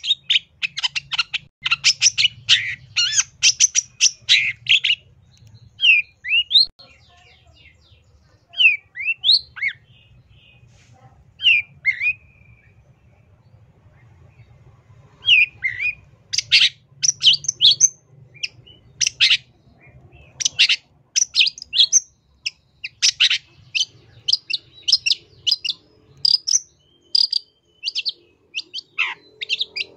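Long-tailed shrike (cendet) singing: rapid runs of short notes, then a sparser stretch of a few slurred whistles with a pause, then rapid runs again for the second half.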